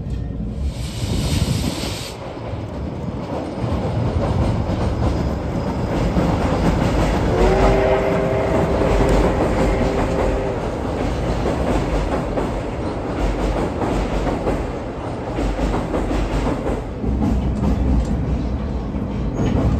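Steam train running on the rails, with a steady rumble and wheel clatter. About halfway through, the C11 locomotive's whistle sounds one steady multi-note blast lasting about three seconds.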